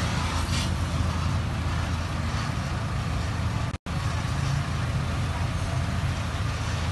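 Gas welding torch flame hissing steadily against a scooter's exhaust silencer during a weld repair, over a steady low rumble. The sound cuts out for an instant about four seconds in.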